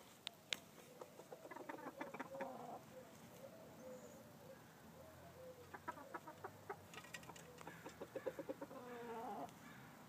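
Chickens in a pen clucking in several quick runs of short clucks, over a soft continuous low call, with a couple of sharp clicks near the start.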